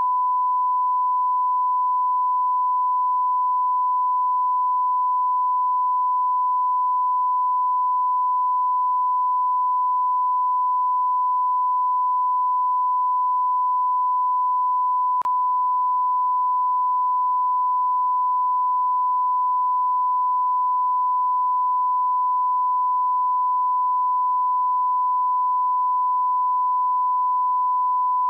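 Steady 1 kHz sine-wave test tone, the line-up tone that goes with a television test card, holding one pitch at an even level. A faint click comes about halfway through.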